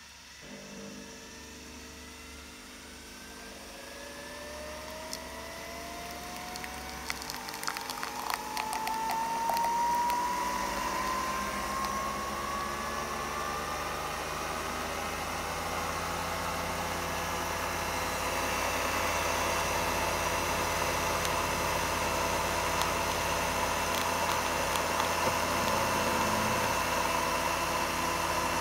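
Nespresso Virtuo coffee machine brewing: a motor whine rising slowly in pitch as the capsule spins up, over a steady pump hum, with a run of sharp clicks about eight seconds in. It then settles into a steady whirring hum while the coffee pours.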